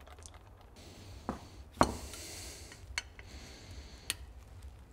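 Small metallic clicks and clinks as the relief-valve spring is pushed into a cast-aluminium oil pump housing and tools touch the metal, four sharp clicks in all, the loudest just under two seconds in.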